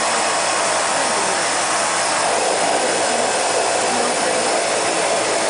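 Steady drone and hiss of a seaplane's engines and propellers, heard from inside the cabin as it taxis on the water.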